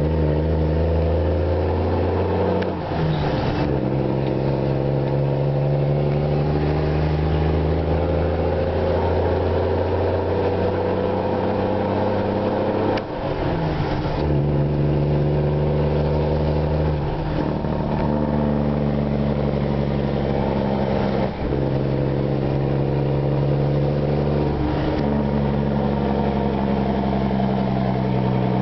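2005 Mack Granite roll-off truck's diesel engine, straight-piped through a 6-inch stack with no muffler, pulling hard through the gears of its Mack 10-speed transmission, heard from inside the cab. The engine note climbs steadily, then drops at each upshift: about three seconds in, near the middle, and about three-quarters of the way through, with smaller steps in between.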